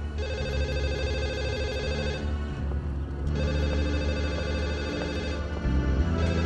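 Telephone ringing: two long rings with a pause of about a second between them.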